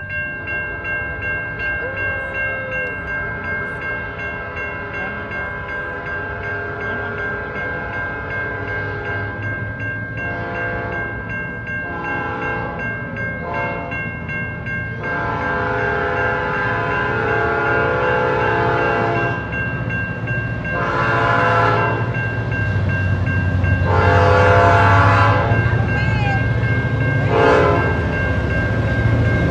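A railroad crossing bell rings steadily with an even pulse. About halfway through, an approaching CN diesel locomotive sounds its horn in four blasts for the crossing: the first about four seconds long, the last short. The locomotive's low engine rumble grows louder over the last third.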